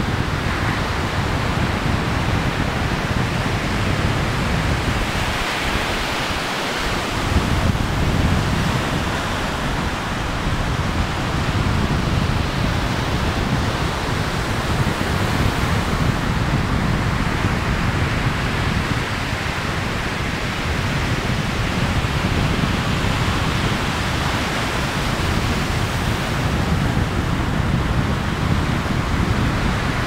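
Ocean surf washing on a sandy beach, with wind buffeting the microphone: a steady, loud rushing noise with a rumbling low end.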